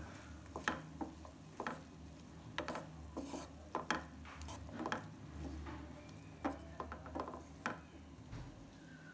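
Wooden spatula stirring chickpea and tomato curry in a nonstick frying pan, scraping and clacking irregularly against the pan over a faint sizzle.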